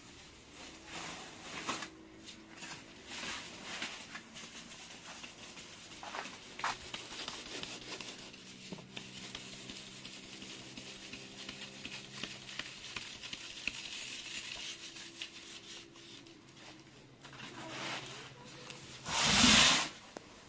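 Flour being sifted through a wooden-rimmed hand sieve: a steady rustling hiss with scrapes of the rim as the sieve is shaken, and a loud burst about a second long near the end.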